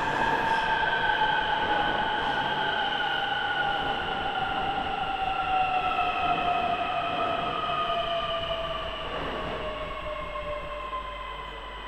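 Øresundståg electric multiple unit running past along the platform and slowing, its traction motors whining in several tones that fall steadily in pitch over running noise. The sound fades somewhat near the end as the last car passes.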